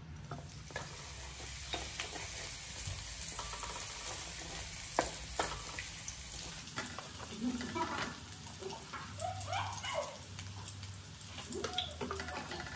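Minced garlic sizzling in hot oil in a wok, stirred with a wooden spatula that scrapes and knocks against the pan now and then.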